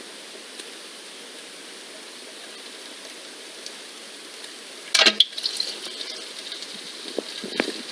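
A steady hiss, then about five seconds in a sudden loud splash of water followed by crackling and fizzing.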